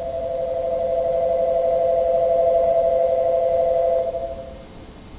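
Electronic platform departure bell ringing a steady two-tone ring that grows louder and then cuts off about four seconds in: the warning that the Shinkansen's doors are about to close for departure.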